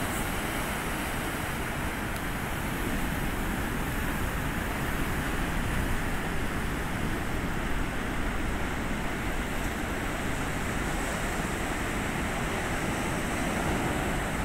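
Heavy ocean surf breaking and washing up the shore: a steady rush of white water that swells a little about a third of the way in and again near the end.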